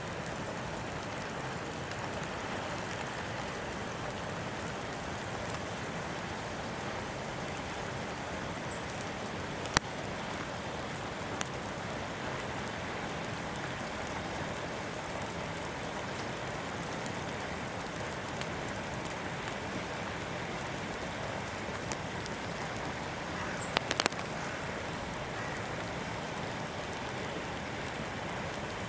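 Steady hiss of falling precipitation on a wet snowy day, with a single sharp tap about ten seconds in and a few quick taps about 24 seconds in.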